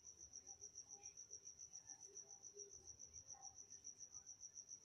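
Faint cricket chirping, a steady high trill of rapid, evenly spaced pulses, roughly eight a second.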